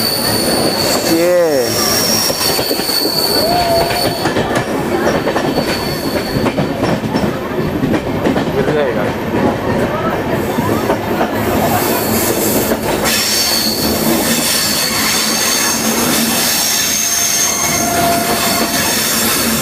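Passenger train carriage running on the track: a steady rumble and rattle, with high-pitched squeals of the wheels against the rails that come and go.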